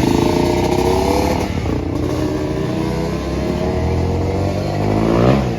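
A motor vehicle engine running and revving, its pitch sliding down and then climbing sharply about five seconds in before it drops off.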